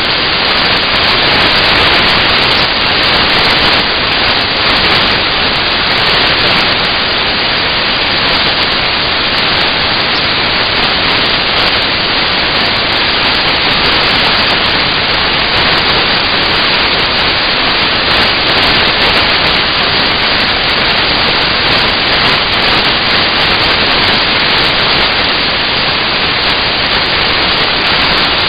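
Loud, steady static-like hiss that holds unchanged throughout, with no distinct knocks or tones in it.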